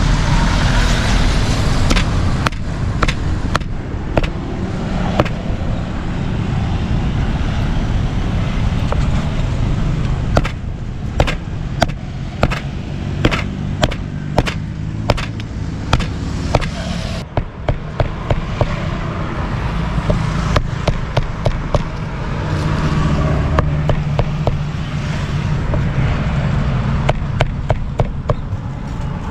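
A cleaver chopping grilled meat on a chopping block: runs of sharp knocks, about two a second, stopping and starting, over a steady rumble of road traffic.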